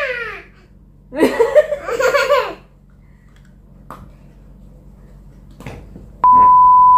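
Laughter about a second in, as a woman and toddler play. Near the end comes a loud, steady, single-pitch beep lasting about a second, a bleep edited into the soundtrack.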